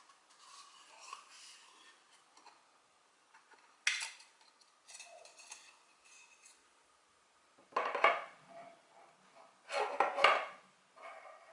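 Hard plastic and metal camera accessories and packaging being handled: small clicks and clinks, with louder clattering bursts about four, eight and ten seconds in.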